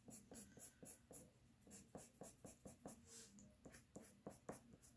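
Faint scratching of a Prismacolor Premier colored pencil on paper, about four short strokes a second, as hair strands are drawn in with quick individual strokes.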